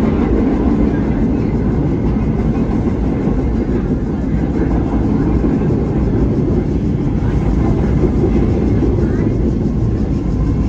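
Vintage subway train running along the track, heard at the car's end door between cars: a loud, steady rumble and rattle of wheels on rails and the car body.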